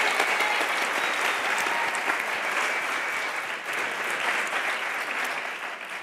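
Audience applauding: steady clapping from many hands that dies away near the end.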